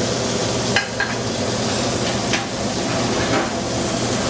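Restaurant kitchen noise: a steady hiss with a few light clicks and clinks of utensils, about a second in and again twice later.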